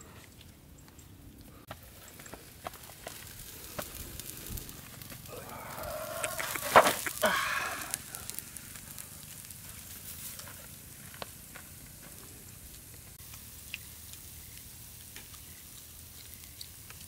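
Crackling and sizzling from the fish grilling, with many scattered sharp crackles and a louder, busier burst about six to eight seconds in.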